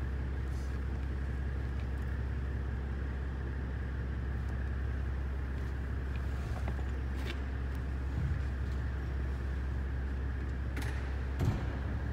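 Steady low mechanical drone with a constant higher whine over it, and a few faint knocks.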